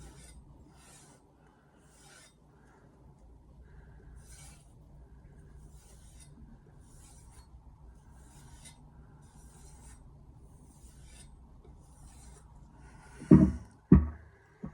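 Mercer 8-inch granton-edge kitchen knife stropped on the suede side of a leather strop loaded with diamond compound: soft, even rubbing strokes, about one a second. Near the end, two loud thumps.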